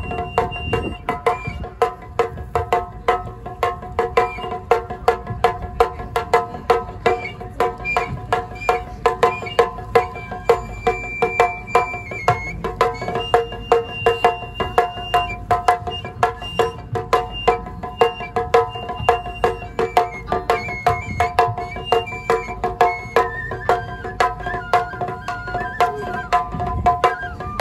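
Live Japanese folk-style music. A transverse flute plays a high melody of held notes over a steady drone, with an even beat of struck percussion, about three strikes a second.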